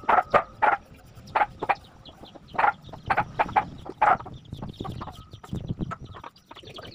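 Chickens clucking: a run of short, sharp calls in quick succession near the start and again about three to four seconds in. A low rumble comes in about five seconds in.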